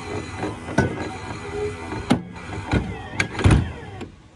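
Trac Fisherman 25 electric anchor winch running, hauling the anchor up with a low motor hum and several sharp clanks and knocks as the anchor meets the bow mount. It cuts off suddenly about four seconds in.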